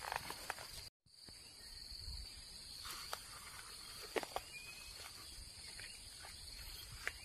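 Steady high-pitched drone of insects in the surrounding vegetation, with a few faint clicks. The sound cuts out completely for a moment about a second in.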